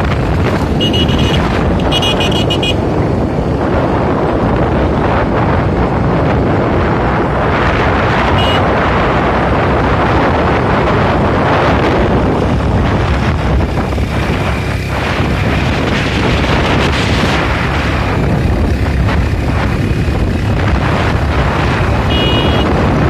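Steady wind buffeting the microphone of a phone carried on a moving vehicle, with a low rumble from the ride beneath. A few short high chirps cut through about one and two seconds in, once more at around eight seconds, and near the end.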